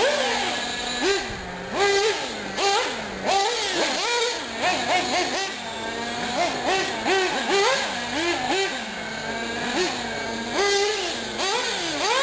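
Small nitro engines of two 1/8-scale R/C off-road buggies revving up and falling back again and again around the track. The whines rise and drop in quick, overlapping bursts, with a steady idle-like drone at the start and again near the end.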